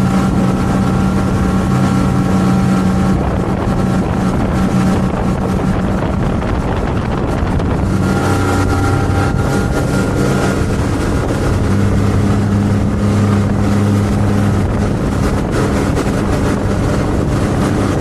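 Motorboat engine running steadily at speed while towing a tube, its pitch shifting slightly a few times, with wind blowing across the microphone.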